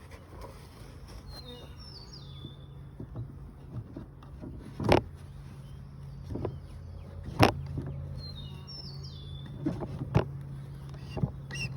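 Wooden beehive lid being knocked and worked into place on a Flow Hive super: several sharp knocks, the loudest about five and seven and a half seconds in, over a steady low hum of honeybees. A bird chirps twice in the background.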